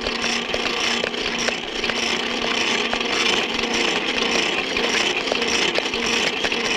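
Belt-driven workshop machinery running: a steady hum under a dense clatter of belts and pulleys, with frequent small clicks.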